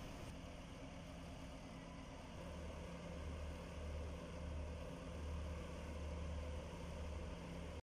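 Low, steady engine drone of the ro-ro ferry KMP Sebuku passing close by, swelling slightly in level over a faint hiss. It cuts off abruptly just before the end.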